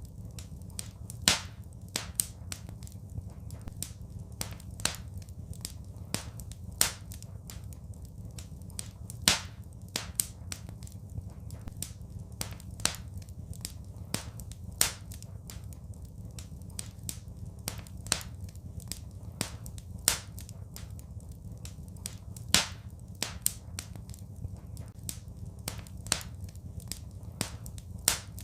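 Fireplace fire crackling, with sharp pops at irregular intervals, a few much louder than the rest, over a steady low rumble.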